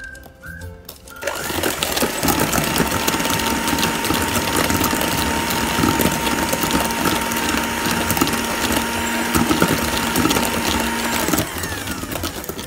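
Electric hand mixer running at a steady whine, its twin beaters whisking cream cheese frosting in a stainless steel bowl. The mixer switches on about a second in and stops near the end.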